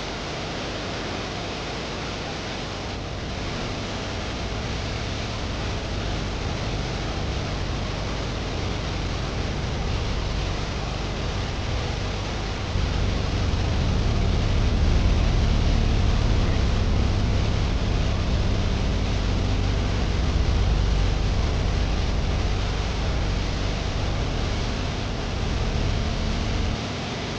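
Waterfall: water pouring and splashing in a steady rushing noise. About halfway through a deeper low rumble joins in, and it cuts off sharply near the end.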